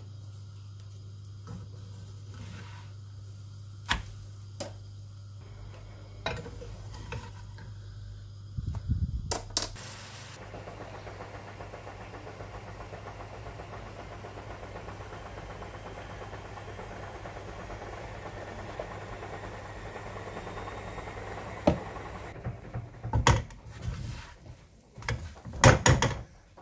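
Pancake batter frying in a hot, oiled non-stick frying pan: a low steady hum with a few light clicks, then a steady sizzle after fresh batter goes into the pan. Several sharp knocks and clatters of pan and utensils come near the end.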